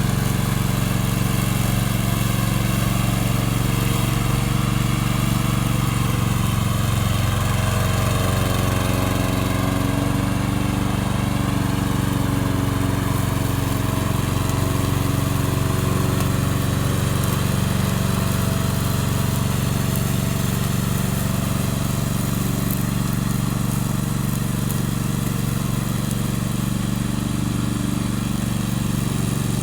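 Remote-control lawn mower's engine running steadily at an even speed.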